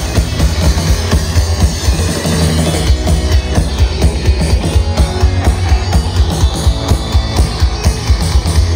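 Loud rock music with drum kit and guitar, driven by a steady beat.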